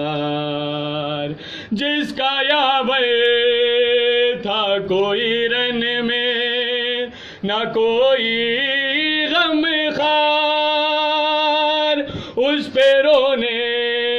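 A man's unaccompanied voice chanting a nauha, a Shia mourning lament, holding long wavering notes. The notes break briefly for breath about a second and a half in, around seven seconds and near twelve seconds.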